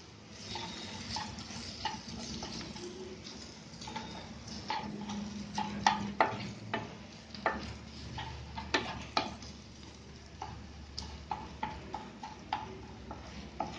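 Wooden spatula stirring and mashing boiled potato into fried onion masala in a non-stick frying pan, with irregular scrapes and knocks of the spatula on the pan over light sizzling.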